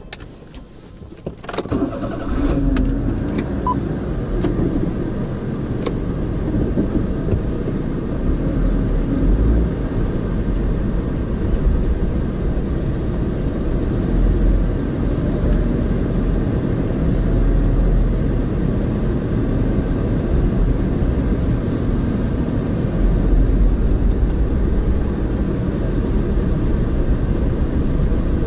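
A car's engine starts about a second and a half in, after a few sharp clicks, then runs steadily with a low rumble as the car pulls away slowly, heard from inside the cabin.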